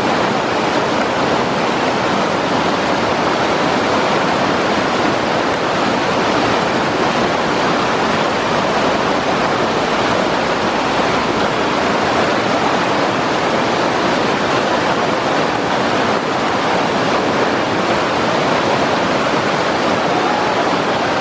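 Whitewater river rapids rushing over boulders: a loud, steady wash of churning water.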